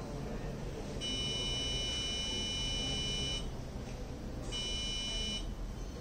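Electronic buzzer on an Arduino Nano Morse-code circuit sounding a long, high steady beep of about two and a half seconds, then a short beep of about a second, each sounding while the eye-blink sensor is triggered.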